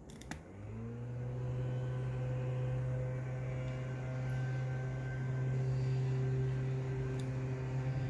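A small electric motor hum: a click, then a hum that rises in pitch over about half a second and settles into a steady tone, running on until it cuts off suddenly near the end.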